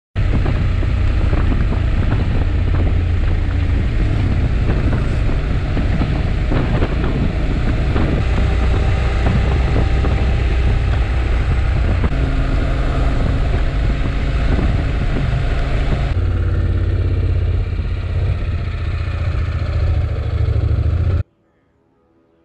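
Honda NC750X parallel-twin motorcycle running at road speed, its engine drone under heavy wind rush on the microphone. The sound stops abruptly about a second before the end, leaving only a faint sound.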